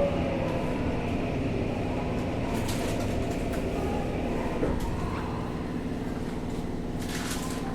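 Interior running sound of a Tokyo Metro 05 series subway car: wheel and rail rumble under the steady tones of its Mitsubishi IGBT inverter-driven traction motors, with a few short clicks.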